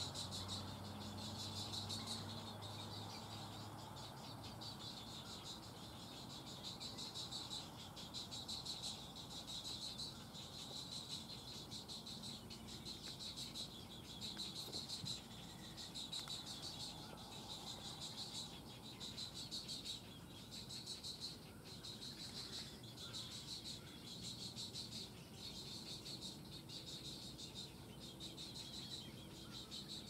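A steady high-pitched chirring chorus of calling animals that swells and dips every second or two.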